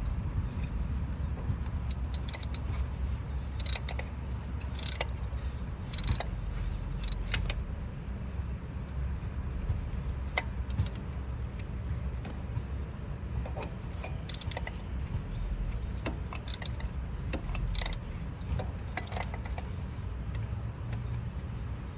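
Metal hand tools clinking and tapping against each other and against engine parts at irregular intervals, a few sharp clinks a second at the busiest moments, over a steady low background rumble.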